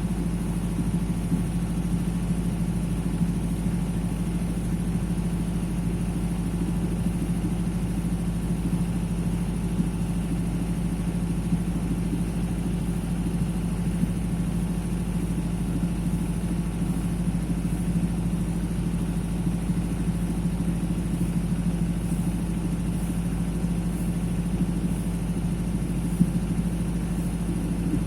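Emerald generator set's engine running steadily at a constant speed while it warms up, a continuous even hum.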